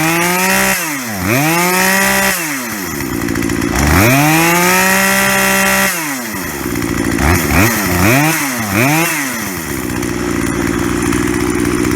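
Two-stroke chainsaw engine revved in repeated throttle blips, a longer rev in the middle and three quick ones after it, then settling into a steady idle. It now holds its idle after its idle-speed screw was turned up.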